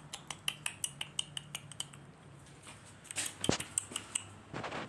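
A quick run of light, sharp clicks and taps, about six a second for the first two seconds, then another short cluster near the end.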